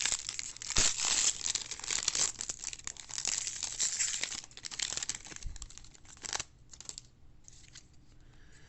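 A foil baseball-card pack wrapper being torn open and crinkled, a dense crackling with sharp clicks that stops about six and a half seconds in.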